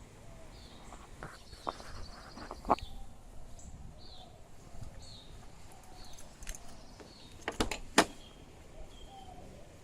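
Birds chirping in short repeated calls, with a few sharp clicks and knocks between about one and three seconds in and two louder ones near the end.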